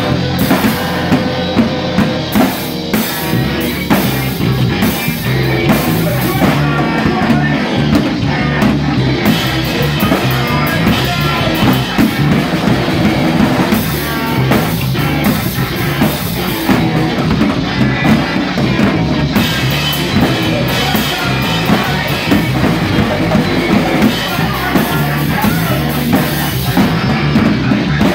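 Live rock band playing loudly: drum kit and electric guitar in a continuous, steady beat.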